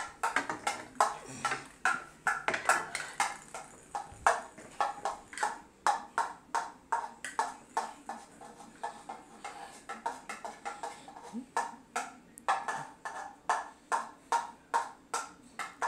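Plastic toy golf club head tapping and knocking on a tile floor over and over, about two to three sharp taps a second, each with a short ring.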